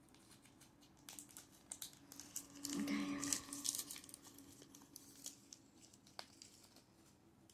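Faint crinkling and tearing of plastic blind-bag wrappers as small toy packets are opened, in irregular bursts for a few seconds, followed by a few light clicks.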